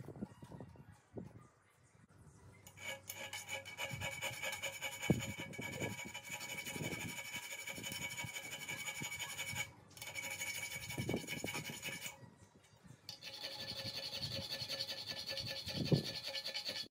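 Small hand file, likely a needle file, rasping on a clamped metal bar in steady strokes, with the bar ringing under the file. The filing stops briefly twice, near the middle and again a couple of seconds later.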